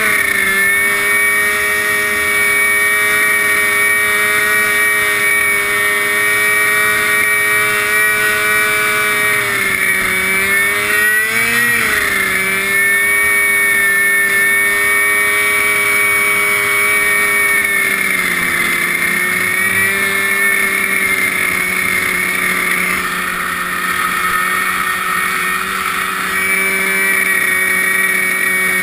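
Lawn tractor engine running at speed through a tall vertical exhaust stack, a steady high motor note. Its pitch rises and dips briefly about halfway through, then settles slightly lower for the rest.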